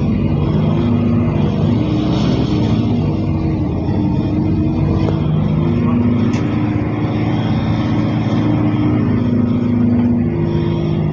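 Mercedes-Benz OC500LE bus engine running under way, heard from inside the cabin as a steady loud drone whose pitch rises and falls several times as the bus accelerates and eases off. The engine sounds like a big metal box, which the rider finds unusual for this bus.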